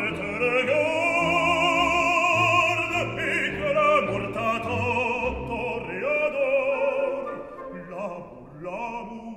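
Background music: an operatic voice sung in French, holding long notes with wide vibrato over instrumental accompaniment, with a brief lull near the end.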